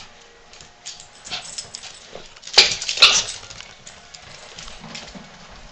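A small dog scampering and jumping on a tile floor, its claws clicking and scrabbling, with two sharp knocks about two and a half and three seconds in.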